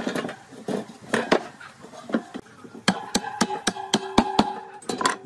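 Knocking on a spoked bicycle wheel lying on a wooden table, with a wooden stick set through its hub: irregular knocks and clatter, then about three seconds in a quick run of about seven sharp taps, some four a second, with a ringing tone under them.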